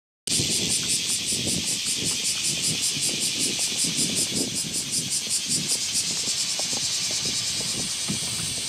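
Cicadas calling in a loud pulsing chorus, about five pulses a second, that settles into a steady high buzz near the end. Irregular low knocks run underneath.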